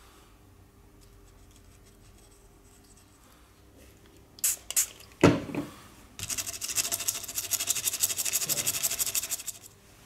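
A few sharp clicks and a knock, then about three and a half seconds of fast, rhythmic scratching of a tool against a hard surface.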